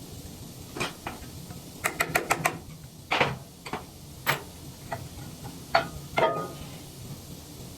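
Sharp metallic clinks and knocks of hand tools and steel parts as a wood chipper's anvil is being removed. A quick run of about five clicks comes about two seconds in, followed by scattered single knocks.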